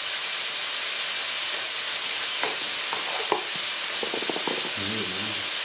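Chicken pieces sizzling steadily in a frying pan on full heat. A few clicks of the opened tin can being handled come past the middle, and near the end the liquid from the can of peas pours out into a plastic tray.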